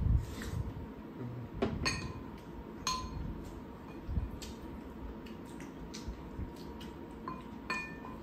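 Eating utensils clinking and scraping against ceramic bowls as food is scooped up. There are a few sharp, ringing clinks, two about two and three seconds in and more near the end.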